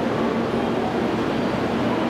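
Steady rumble of an electric train on the station tracks, with a faint whine over it.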